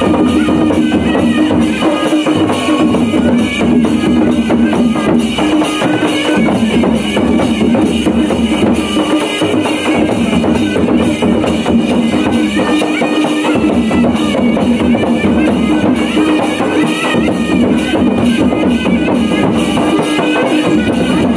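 Live folk dance music: hand drums beat a steady rhythm while a reed wind instrument plays a wavering melody over held tones.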